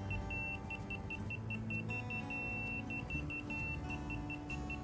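Laser level receiver on a grade rod beeping: quick short high beeps, several a second, that switch a few times into a longer steady tone as the receiver is slid through the laser beam. On such receivers the steady tone marks on-grade and the fast beeps off-grade.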